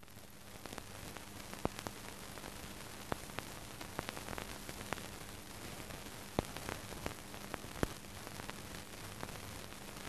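Steady hiss and low hum of a 1951 newsreel film soundtrack, crackling with scattered clicks and a few louder pops.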